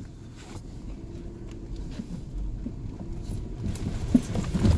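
Toyota 4Runner crawling over a muddy, rutted trail, heard from inside the cabin: a low engine rumble, with knocks and clunks from the tyres and suspension over the ruts growing louder and more frequent near the end.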